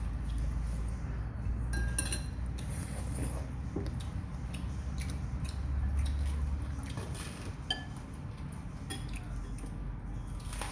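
Spoons and forks clinking against plates and bowls while eating: scattered light clinks, irregularly spaced, over a low steady hum.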